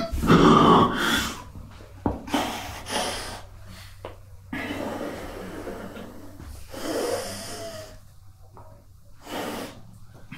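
Heavy breaths and snorts from a person close to the microphone, coming in separate irregular bursts after a louder vocal sound at the start.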